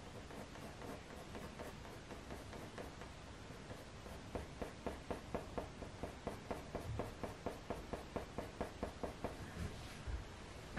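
Coloured pencil scratching on hot-pressed watercolour paper in short, quick strokes. The strokes turn into a fast, even run of about four a second from about four seconds in, and stop shortly before the end.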